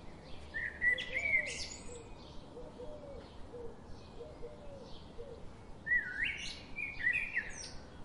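Java sparrows chirping: two bursts of sharp chirps and clicky notes, about a second in and again about six seconds in. Between them, in the first five seconds, there is a faint series of short low calls.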